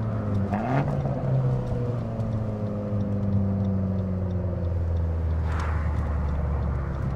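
Fiat 500 Abarth's turbocharged four-cylinder engine and stock exhaust: a short rise in revs about a second in, then the revs falling slowly for several seconds, with a brief burst of noise about five and a half seconds in, settling to a low steady drone.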